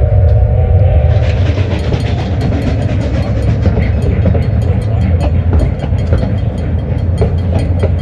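Train rolling past: a steady low rumble with rapid, even clickety-clack of wheels over rail joints, about four clicks a second, starting about a second in. A held tone fades out in the first second.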